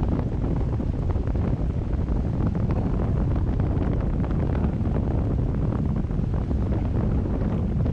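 Steady, dense wind noise buffeting the microphone of a camera on a paraglider pilot's harness in flight, with the airflow of a spiral turn rushing past.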